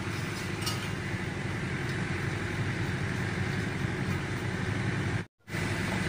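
Steady low mechanical hum of background machinery, with a couple of faint clicks, broken by a brief drop to silence near the end.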